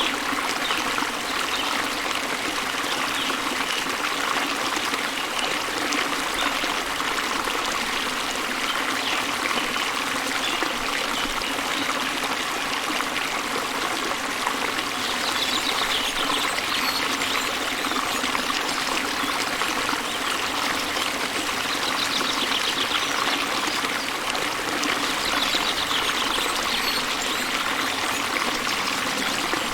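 Water of a small stream trickling and flowing steadily.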